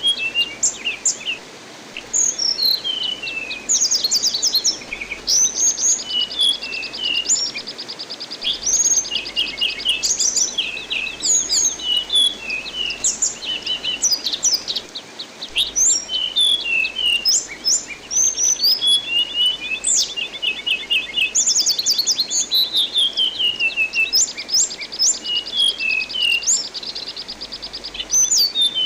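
Anis binbin songbird singing continuously in varied phrases: sharp whistles, quick falling runs of notes and long fast buzzing trills lasting a couple of seconds, over a steady hiss of running water.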